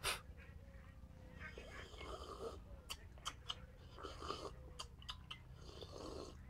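Faint drinking sounds from a glass mug: quiet sips and swallows with a few small clicks.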